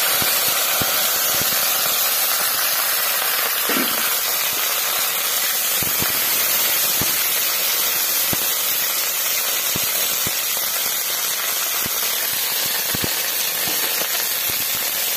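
Cut okra frying in hot oil in a kadai: a steady, loud sizzle that starts as the okra goes in, with scattered light crackles and clicks as it is stirred with a metal spatula.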